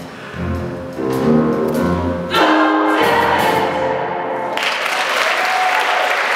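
Choir singing the closing phrase of a gospel Christmas song, ending on a held chord. Audience applause breaks out about four and a half seconds in and carries on.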